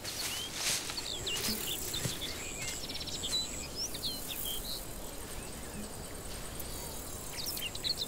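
Open-farmland ambience: small birds chirping in short, scattered calls over a low even hiss, with a thin, steady high-pitched tone behind them.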